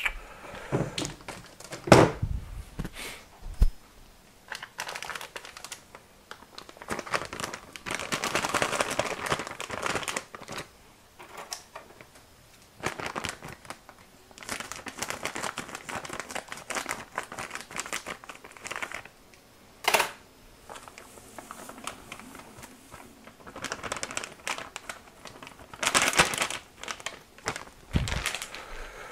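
A bag of dry malt extract crinkling and rustling in stretches as it is handled and emptied into the brew pot, with a few sharp knocks.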